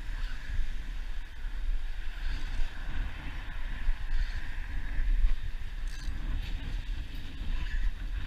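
Wind buffeting an exposed camera microphone: a gusting low rumble over a faint steady hiss.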